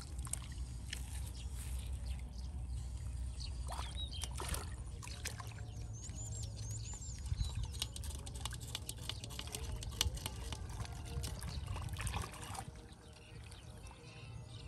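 Hands sloshing and splashing through shallow muddy water in a flooded rice field while feeling for fish, with trickling water and many small sharp splashes.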